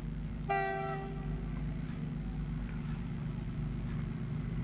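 WDG-4G diesel freight locomotive approaching with a steady low engine rumble. Its horn gives one short blast about half a second in, lasting under a second.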